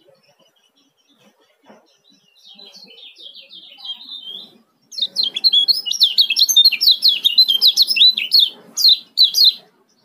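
Male kecial kuning, a Lombok white-eye, calling its fast, tightly packed 'ciak' song: soft chirps first, then from about halfway a loud rapid run of sharp high chirps that stops just before the end.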